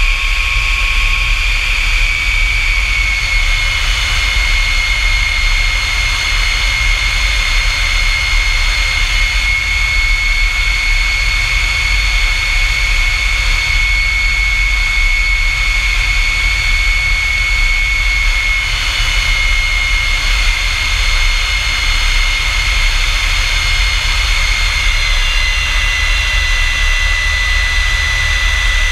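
F-100 Super Sabre's J57 turbojet running steadily: a high whine over a low rumble, the whine dipping slightly in pitch a few seconds in and again near the end.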